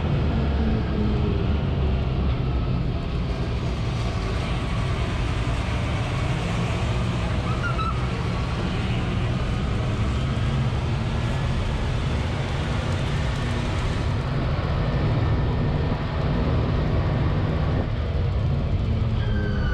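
A vehicle engine running steadily with a low rumble, heard from inside the vehicle's open, mesh-sided cage.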